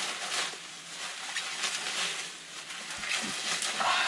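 Packing material rustling and crinkling in irregular bursts as a shipping container is unpacked by hand, with a couple of soft knocks.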